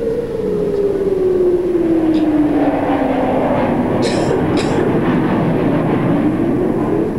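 Civil-defence air-raid siren wailing, one long tone falling slowly in pitch and rising again near the end, sounding an attack alert. Two short sharp sounds come about four seconds in.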